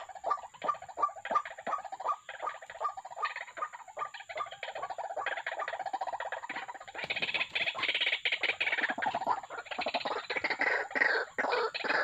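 White-breasted waterhens calling: a rapid train of harsh croaking notes, about four a second, which thickens into a louder, denser chatter from about seven seconds in.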